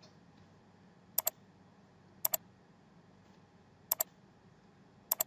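Computer mouse button clicked four times, each click a quick pair of sharp ticks (press and release), about a second or more apart.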